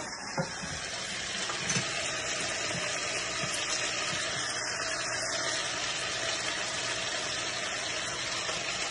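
Chicken karahi gravy sizzling steadily in a nonstick pan, cooked down until nearly all its water is gone, with a few light clicks of a spoon about a second in.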